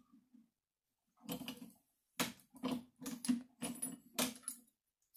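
A string of light metallic clicks and taps from hands adjusting a rifle sizing die on a single-stage reloading press: two short clicks about a second in, then a quick irregular run of about a dozen more.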